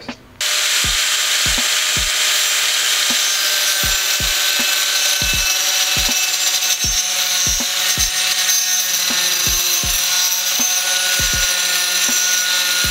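Angle grinder with a 115 mm tungsten-carbide-grit wood-cutting disc sawing through an OSB board: a loud, steady grinding whine with a rasping cut and scattered low thumps. It comes in abruptly just under half a second in.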